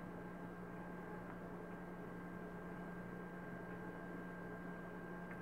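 Steady low electrical hum with a faint higher steady whine over background hiss, and a few faint ticks.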